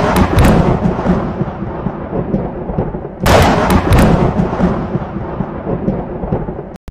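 A deep booming hit as it opens and another about three seconds in, each dying away in a long rumble: trailer-style impact hits in a dramatic music score. The sound cuts out briefly just before the end.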